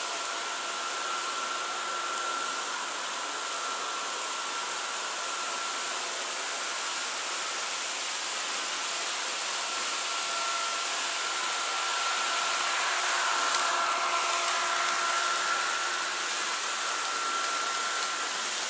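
HO-scale model trains running on a layout: a steady whirring with a thin, high motor whine, growing a little louder about two-thirds of the way through as a second train comes by close.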